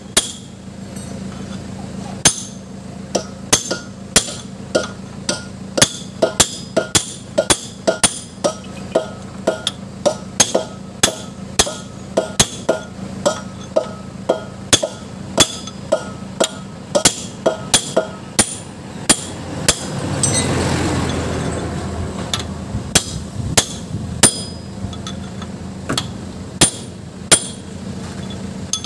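Hand hammer striking a steel bar held against the front wheel hub of a FAW six-wheeler truck, sharp metallic clanks at about one to two blows a second, during the replacement of the front spindle's inner and outer bearings. A swell of rushing noise rises and fades about two-thirds through while the blows pause, over a steady low hum.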